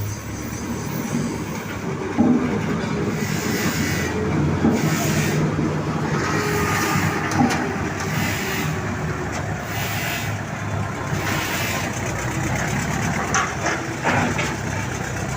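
Old road roller's diesel engine running steadily, with irregular clatter and hiss over the low engine hum.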